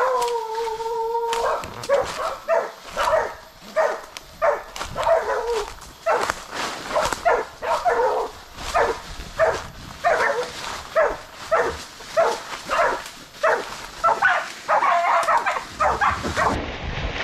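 Bailing pig dogs barking at a pig they have bailed up: one long drawn-out cry first, then steady repeated barks about twice a second.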